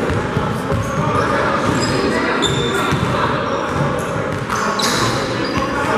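Basketball game sounds: a ball dribbling and bouncing on a hardwood court, with short high sneaker squeaks a couple of seconds in and again near the end, and players' voices in the background.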